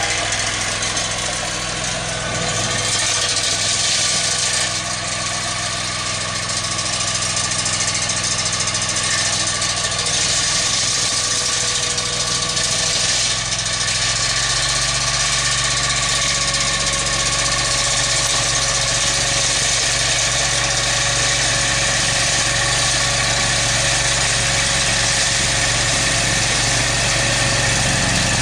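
Ingersoll garden tractor's engine running steadily under load, driving a front-mounted snowblower, with a continuous hiss of thrown snow over the engine hum.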